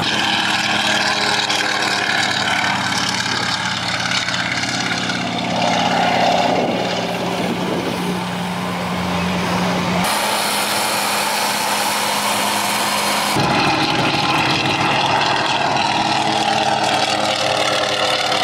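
Antonov An-2 biplane's nine-cylinder radial engine and propeller running with a steady droning note as the plane lifts off and flies past. The sound changes abruptly twice, about ten and thirteen seconds in.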